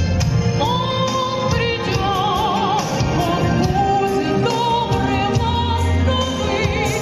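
A woman singing long held notes with vibrato over instrumental accompaniment.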